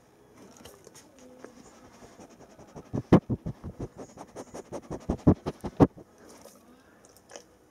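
Bernese mountain dog sniffing right at the microphone: a quick run of loud sniffs, about five a second, starting about three seconds in and lasting about three seconds.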